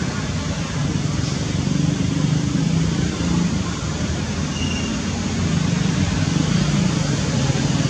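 Steady low engine rumble of road traffic, swelling gently in loudness.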